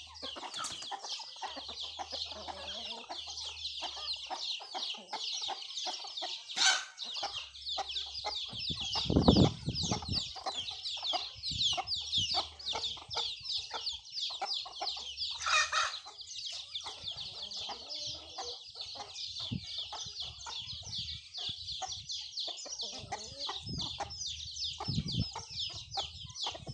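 A flock of young chickens clucking and chirping, a dense run of quick high chirps going on the whole time. A short low rumble about nine seconds in is the loudest moment, and there are a couple of sharp clicks.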